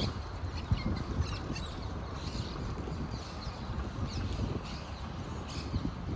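Low wind rumble on the microphone and tyre noise from a bicycle rolling over asphalt, with short bird chirps scattered throughout from the trees.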